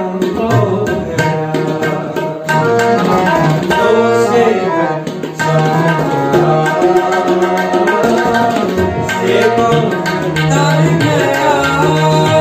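Gurbani kirtan music: tabla playing a steady rhythm under the sustained notes of a harmonium.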